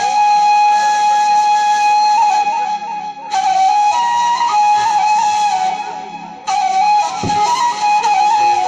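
Tunisian folk (mezoued-style) music led by a wind instrument playing a high, ornamented melody, in phrases with short breaks about three and six seconds in.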